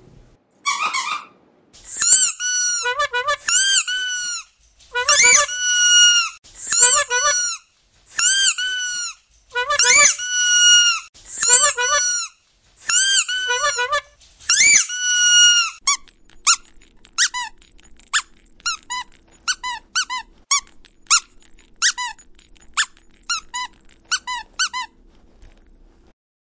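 Two rubber squeaky dog toys squeezed in turn. The first gives a dozen long squeaks about a second apart, each bending up and down in pitch. From about 16 s a second toy gives a quicker run of short squeaks, which stop a second or so before the end.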